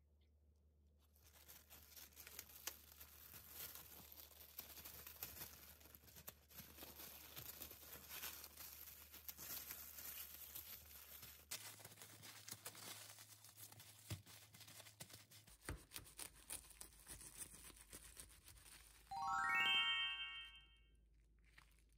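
Sandwich wrapping paper crinkling and rustling as it is folded around a sandwich by hand. Near the end a short 'ta-da' sound effect plays: a quick rising run of chime-like notes, the loudest thing here.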